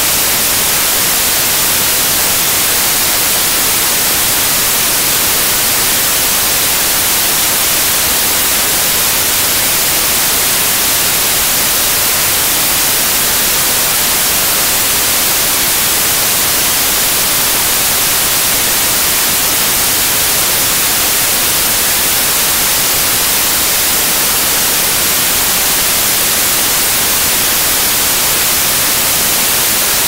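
Loud, steady white noise: an even hiss spread across all frequencies that does not change.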